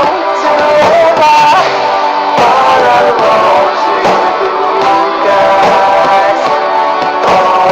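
Pop-rock band music with guitar and a gliding melodic lead line over the accompaniment.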